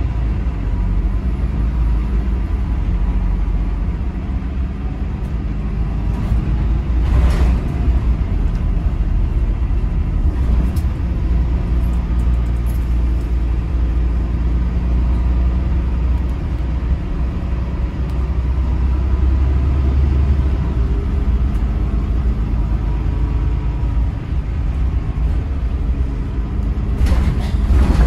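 Volvo B8RLE single-deck bus on the move, heard inside the saloon: a steady low rumble of the rear diesel engine and road noise. Two short clunks or rattles come through, one about seven seconds in and one near the end.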